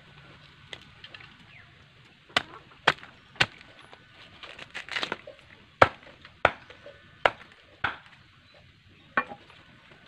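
Large knife chopping bamboo shoot on a wooden block: about eight sharp chops at uneven intervals, with a short run of lighter clicks around the middle.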